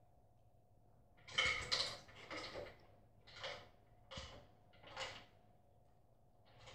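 Dog eating dry kibble from a stainless steel bowl: five short noisy bursts of crunching and food rattling in the metal bowl, the first and loudest about a second and a half in.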